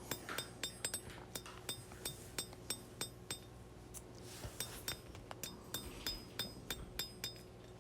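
Faint, fairly quick hammer blows on hot steel over an anvil, about three a second, each with a short metallic ring, as a blade tip is drawn out by hand forging.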